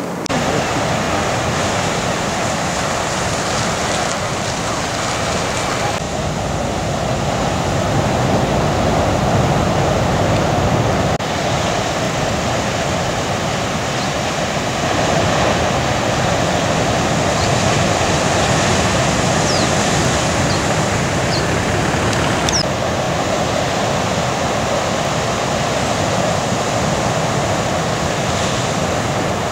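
Ocean surf: a steady rushing noise of large waves breaking, with abrupt shifts in the noise where the footage is cut.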